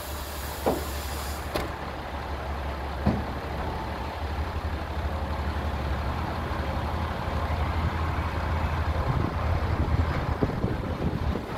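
2004 Sterling dump truck's diesel engine running steadily while the hydraulic dump bed lowers, with a few light clicks and knocks. A hiss stops about a second and a half in, and the sound swells toward the end before easing off as the bed comes down.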